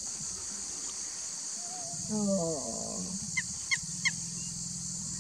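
Steady high-pitched drone of crickets. About two seconds in a short, low, falling voice-like call is heard, and around three and a half to four seconds three quick, sharp downward chirps.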